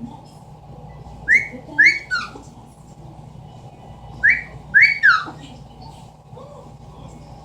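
Amazon parrot whistling a short phrase twice: two quick rising notes and then a falling one.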